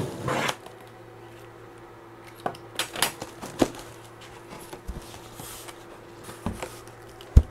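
Cardboard shipping box being unpacked. The packing tape is slit along the seam at the very start, then the flaps are folded back with scattered crinkles and light taps, and there is one sharp knock shortly before the end.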